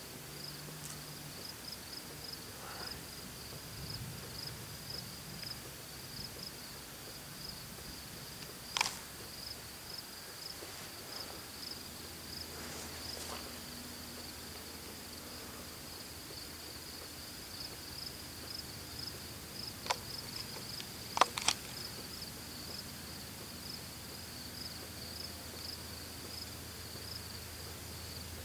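Night insects chirping in a steady, evenly pulsing high-pitched trill, broken by a few sharp clicks: one about nine seconds in and three close together just past twenty seconds.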